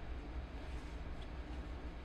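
Electric sewing machine running steadily, with a low, even motor hum.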